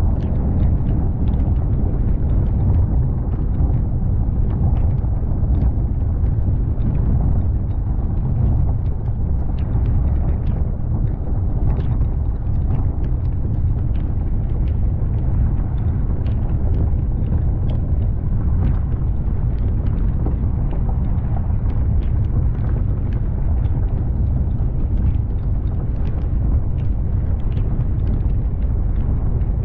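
Strong wind buffeting the phone's microphone: a steady, deep rumble, with scattered faint ticks throughout.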